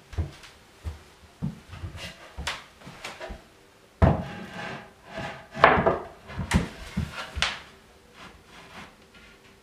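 Plywood cabinet panels handled and fitted together: a string of light wooden knocks and scrapes as a side panel is stood upright in the dado of the bottom panel. The loudest knocks come about four seconds in and again around six to seven seconds in.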